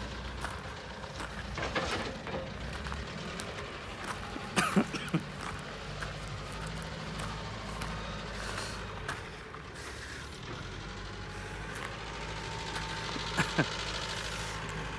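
Faint, steady low rumble of a distant heavy vehicle engine running, with a few short clicks and scrapes now and then.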